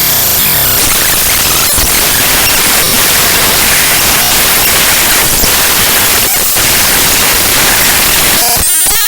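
Raw bytes of the OpenGL Extension Wrangler Library DLL (GLEW) played directly as audio: loud, dense static-like noise. About eight and a half seconds in, it changes to a choppier, buzzier stretch with a repeating pattern and a few steady tones, as the data's structure changes.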